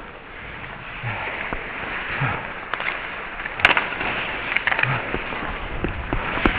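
Ice hockey play heard from a player's helmet: skate blades scraping and carving on the ice, with sharp clacks of sticks and puck, the loudest a little past halfway and a few more near the end.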